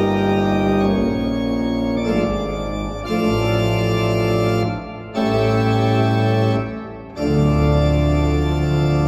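Church pipe organ playing full sustained chords over a deep bass, the chords changing every second or two. There are two short breaks between phrases, about five and seven seconds in.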